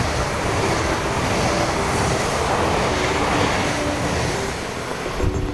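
Double-deck intercity train passing a station platform at speed: a steady, loud rush of wheel and air noise that eases off slightly near the end as the last carriages go by.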